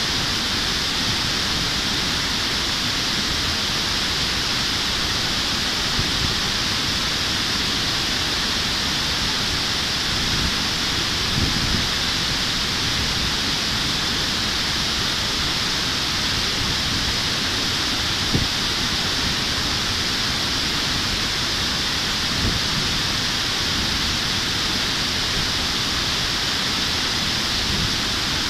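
Steady, loud rush of river water spilling over a concrete weir and down its sloping apron, with a few brief low bumps on top.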